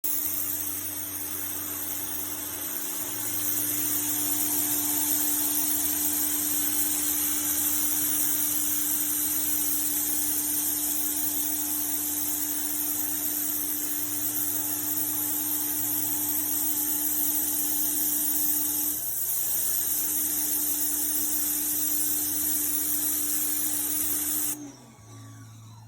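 Pressure washer spraying: a steady loud hiss of the water jet over a steady machine hum, cutting off about 24 seconds in.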